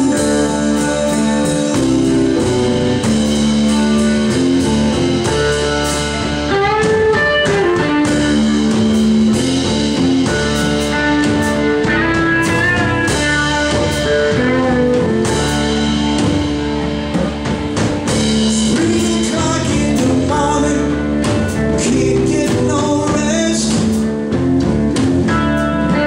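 Live blues band playing: electric guitar, bass, piano, drum kit and congas.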